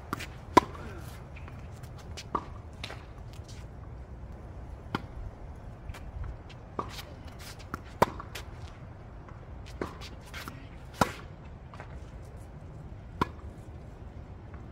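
A tennis groundstroke rally on a hard court: sharp pops of the ball coming off racket strings, one every second or two, with fainter hits and bounces between them.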